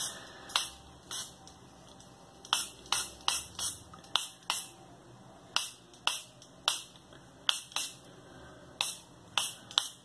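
About twenty short, sharp hissing bursts, irregularly spaced and at times two or three a second, as a disassembled pistol frame is worked over during cleaning.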